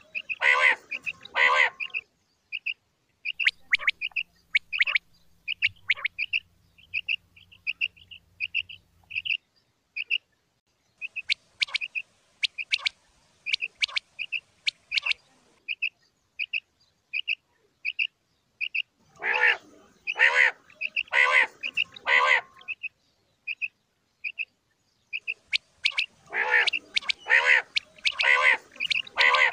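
Common quail calling: a steady run of short, high notes about two a second, broken by louder, fuller calls in groups of about four, spaced under a second apart, near the start, about two-thirds through and near the end.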